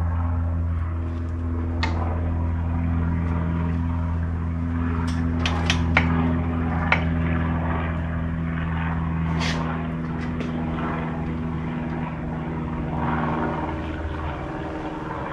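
Steady low machine hum in the workshop, with a few light metallic clicks and taps as drill press parts are handled and fitted. The hum weakens near the end.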